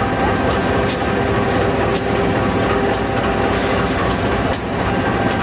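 General Electric 18-7i diesel-electric locomotives running steadily with a low rumble, with occasional sharp clicks and a short hiss about three and a half seconds in.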